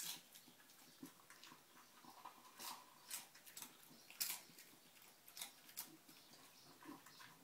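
A small dog chewing a mouthful of dry food: a few faint, scattered crunches, the loudest about four seconds in.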